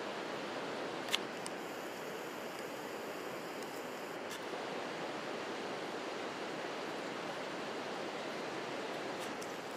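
Steady outdoor rushing noise with no distinct source, and a single sharp click about a second in.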